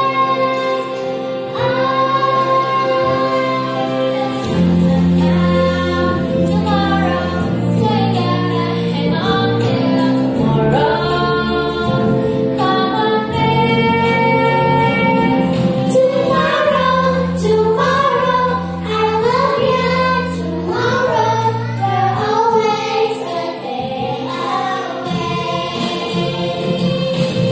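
Group of young girls singing a song together into microphones over a musical accompaniment, with a bass line coming in a few seconds in.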